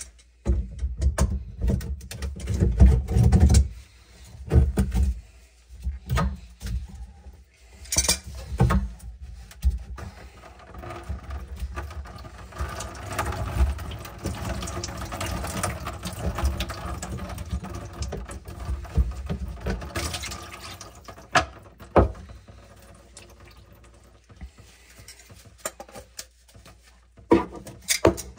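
White plastic sink P-trap being unscrewed and pulled apart by hand, with knocks and clunks of plastic parts. Around the middle, water left in the trap pours out for several seconds, then a few sharp clicks as the trap is handled.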